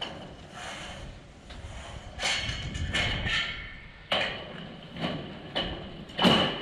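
Corrugated steel pan-decking sheets clanking and banging as they are handled and laid onto the floor joists: a series of metallic knocks with a ringing tone, the loudest near the end.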